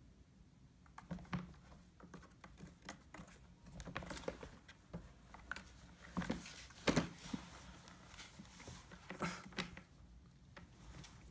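Light, scattered clicks, scrapes and rustles of a cat shifting and rolling about inside a plastic pet carrier, busiest in the middle few seconds.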